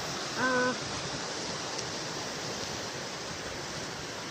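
Steady rushing noise, with a brief hummed voice tone at a flat pitch about half a second in.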